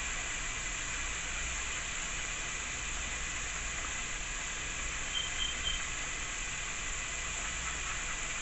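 Hot sauce heating in a pan on the stove, coming up to a boil: a steady sizzling hiss.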